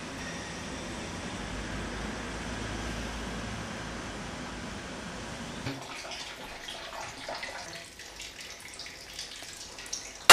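Steady low background noise, then from about six seconds in scattered light clicks and clinks of kitchen work at a sink, with faint water.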